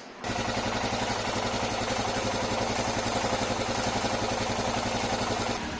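Royal Enfield Himalayan BS6's single-cylinder engine running, with a fast metallic tic-tic clicking over the engine note, the kind of sound raised as an engine problem. It starts abruptly just after the start and eases a little near the end.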